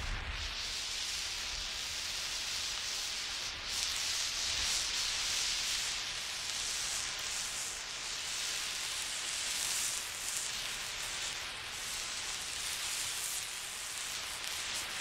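Burning emergency road flare hissing steadily, its level swelling and dipping a little as it is swung side to side.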